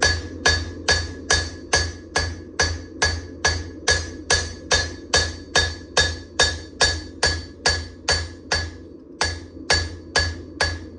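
Hammer blows forging a hot damascus steel knife blank on an anvil, an even beat of about two strikes a second, each with a metallic ring, with a brief pause about nine seconds in. A steady low hum runs underneath.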